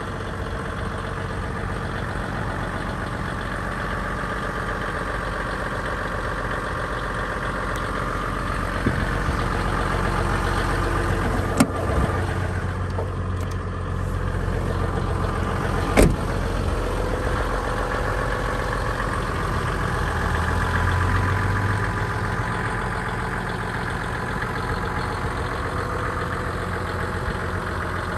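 A 1991 Toyota Coaster's 4.2-litre six-cylinder turbo diesel idling steadily. Two sharp clicks come about four seconds apart near the middle.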